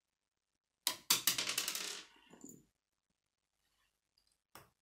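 Plastic K'nex pieces clattering and clicking against each other in a rapid burst lasting about a second, then one sharp click near the end as a connector snaps onto a rod.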